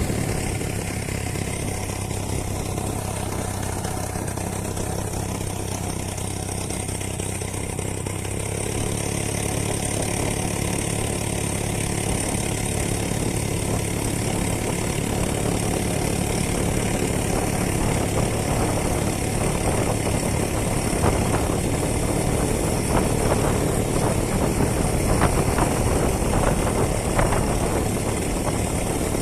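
Two-stroke chainsaw engine of a homemade moped running steadily, getting a little louder in the second half, where irregular clicks and crackles join it.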